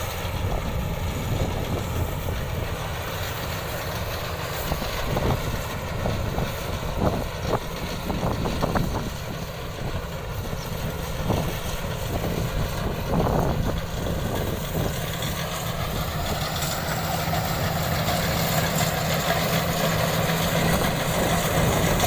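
Iseki rice combine harvester's diesel engine running steadily while cutting ripe rice, with a few brief louder bumps in the middle. It grows louder near the end as the machine comes closer.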